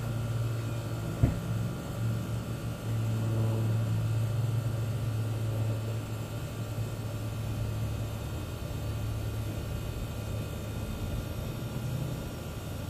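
A steady low machine hum, with one sharp knock about a second in.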